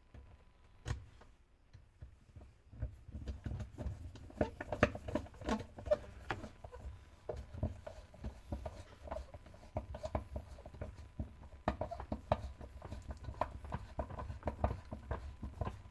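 Irregular clicking, tapping and knocking of tools and washing-machine parts being fitted and screwed back together, starting about two seconds in.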